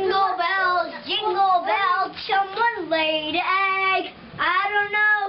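A young boy singing solo, his voice sliding between notes and ending on one long held note.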